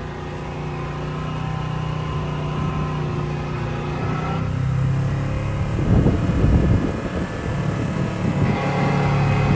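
Off-road vehicle engines running steadily, with a louder, rougher low rumble about six seconds in.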